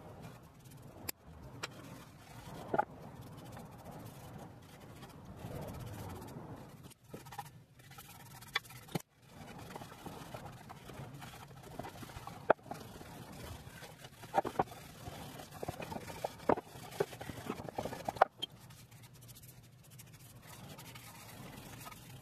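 A cloth and brush rubbing and scraping a liquid finish over a wooden box, with scattered sharp clicks and knocks as the box and brush are handled.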